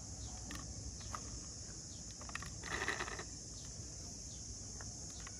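Steady high-pitched drone of insects, with a few faint clicks and a short rustle about three seconds in from a diecast metal toy car being handled.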